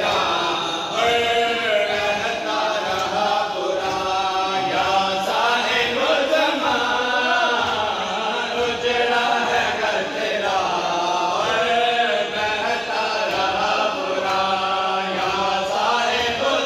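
Men chanting a noha (Shia Muharram lament) together, with steady rhythmic chest-beating (matam) under the chant.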